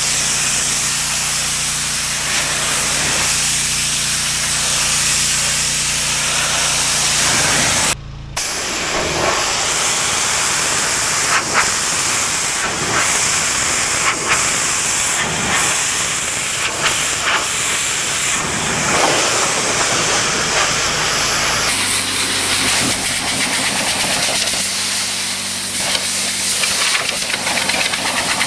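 Pressure washer jet spraying a patio: a loud, steady hiss of water with the machine's motor humming underneath. The sound drops out for a moment about eight seconds in, and the motor's hum changes about twenty-two seconds in.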